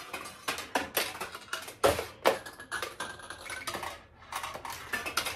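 Irregular clicking and clatter of steel pachinko balls as a vintage Heiwa Single Shot pachinko machine is played: balls are handled in a tray, fed in and launched. The loudest clacks come about two seconds in.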